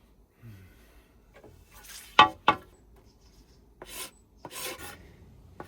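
A hand rasp scraping a hazel walking stick in several separate strokes, the two loudest close together about two seconds in and more around four to five seconds.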